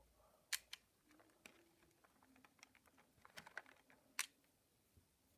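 Light clicks and taps of fingers rummaging among rubber loom bands in a clear plastic organizer tray, with two sharper clicks, one about half a second in and one about four seconds in.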